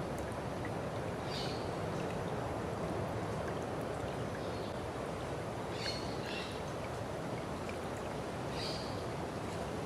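Running water of a stream, a steady rushing, with a bird giving short high chirps about five times, every two seconds or so.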